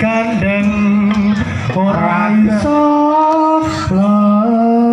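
Javanese jathilan dance music: a voice sings a slow melody in long, wavering held notes that step up and down in pitch between glides.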